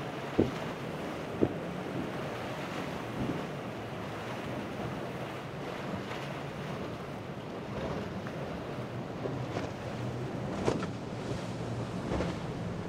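Quad Mercury 450R supercharged V8 outboards on an MTI V-42 powerboat running at speed, a steady low drone under wind on the microphone and surf. Two sharp thumps come within the first second and a half, and another near the end.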